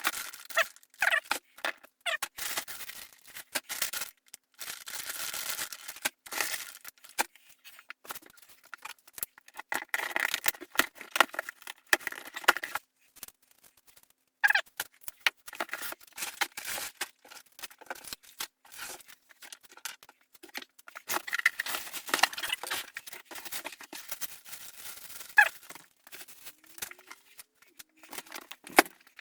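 Unboxing handling noise played fast-forward: cardboard and plastic packaging torn, crinkled and moved about, so it comes as rapid, choppy rustling with many short clicks and knocks.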